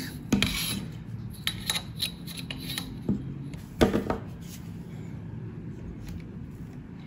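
A steel ruler and a spring clamp handled against the laser cutter's aluminium rail: scattered clicks, scrapes and light metallic knocks, the loudest about four seconds in, over a faint steady low hum.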